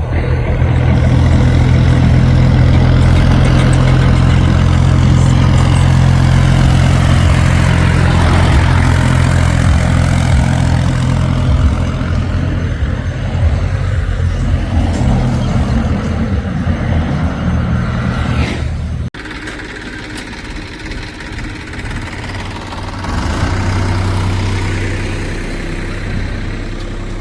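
Heavy diesel engine running hard, its pitch rising and falling. About nineteen seconds in the sound drops suddenly to a quieter engine running, which swells again a few seconds later.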